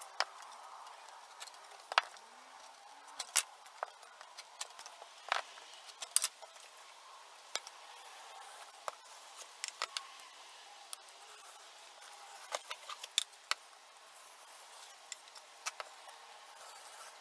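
Handheld edge-banding trimmer and utility knife shaving the overhanging iron-on wood veneer edge banding off plywood edges: a quiet scraping with irregular sharp clicks and snaps throughout.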